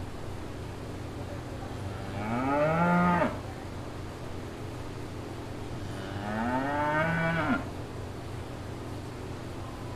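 A cow mooing twice, each moo a drawn-out call of about a second that rises and then falls in pitch before stopping sharply, over a steady low hum.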